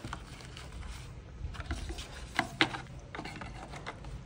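Hands handling a smartphone, its charger and cardboard box: scattered small clicks and taps over a low background hum, with two sharper clicks close together about two and a half seconds in.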